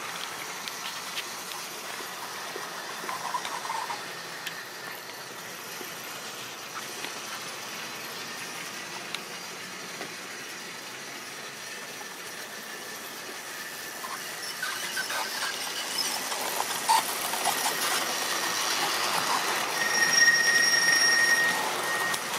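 Tri-ang model trains running on the track: a steady rattling whirr of small wheels and motors that grows louder from about two-thirds of the way in as a rake of coaches passes close. Near the end a high wheel squeal sounds as the coaches round the curve.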